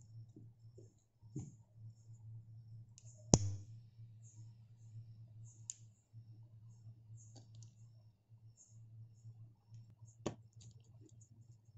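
Hands working macrame cord around a thin metal ring: small scattered clicks and handling noises, with one sharp click about three seconds in and another near the end, over a steady low hum.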